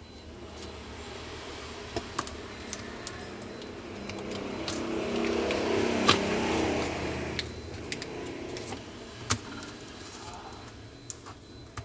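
A motor vehicle's engine passes by, swelling for a few seconds in the middle and fading away. Over it come scattered sharp clicks and taps of small laptop parts and tools being handled.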